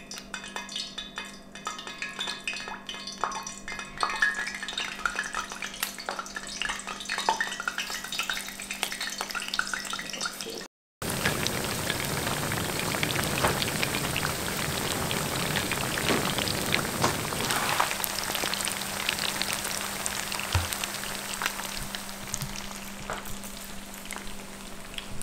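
Beer-battered fish fillets deep-frying in hot oil in a cast-iron skillet: a steady crackling sizzle with scattered pops. It breaks off for a split second about eleven seconds in and comes back denser.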